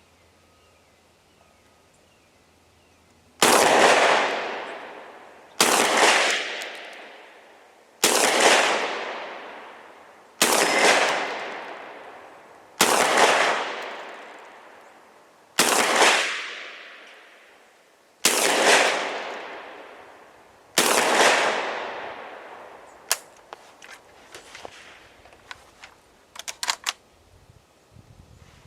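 Centurion BP12 12-gauge semi-automatic shotgun fired eight times in steady succession, about one shot every two and a half seconds, each with a long echo. The gun is feeding and cycling properly from its 15-round drum. A few small clicks follow the last shot.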